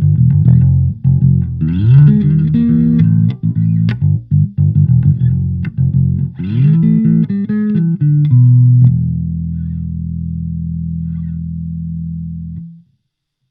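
Electric bass guitar played through a Fender Rumble 25 compact bass combo amp: a run of plucked low notes with slides up and down in pitch, ending on one long held note that stops suddenly near the end.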